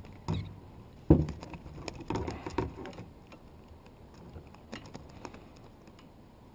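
Knocks and patters as a small bass is handled and unhooked over a plastic kayak, with the loudest knock about a second in and fainter clicks afterwards.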